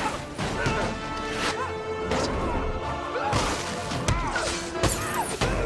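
Film soundtrack with music and repeated hits and crashes, in the manner of an action fight scene: several sharp blows land over a loud, busy score.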